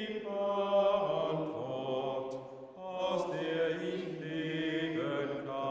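A small group of men singing a slow German hymn together in long held notes. There is a short breath pause about two and a half seconds in before the next phrase starts.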